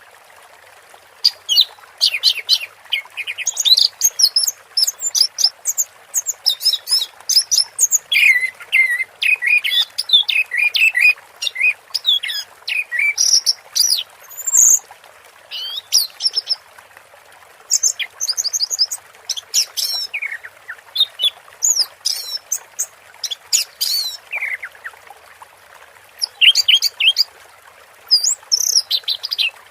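Orange-headed thrush singing a long, varied song of rapid chirps, trills and whistled phrases broken by short pauses, over a steady background hiss.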